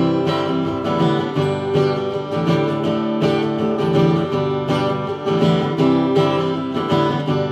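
Acoustic guitar strummed in a steady rhythm: an instrumental stretch of a live country song.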